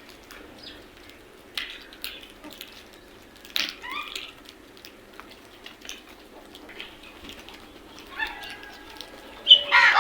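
A group of crows calling: scattered short caws a few seconds apart, with the loudest call near the end, over a faint steady background hum.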